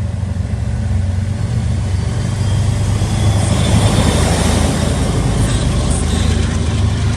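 Diesel commuter rail train pulling out of a station: the locomotive's engine runs steadily under load with the rumble and rush of the moving train, growing louder in the middle.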